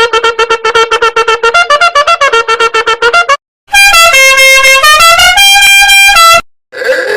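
Comedy meme sound effects: a fast run of short, repeated horn-like toots, about ten a second, then a few held horn notes stepping up and down in pitch like a short tune. A brief, noisier blast with gliding tones follows near the end.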